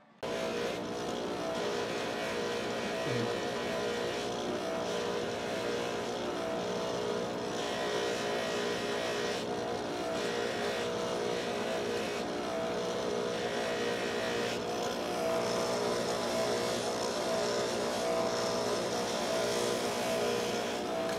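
Electric bench polishing motor running steadily with a stitched cloth buffing wheel, a silver piece held against the wheel to polish it. It makes a steady hum and whine, with a hiss on top that shifts now and then.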